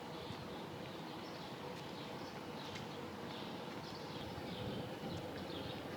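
Outdoor ambience: small birds chirping and twittering repeatedly over a steady low background rumble.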